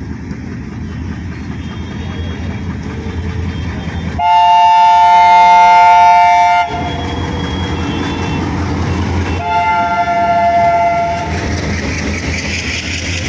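Indian Railways diesel locomotive approaching, its engine rumble growing, then sounding its horn in a long, very loud blast about four seconds in and a second, shorter blast about three seconds later: warning blasts for the level crossing. Near the end the locomotive and its coaches pass close by, wheels clattering on the rails.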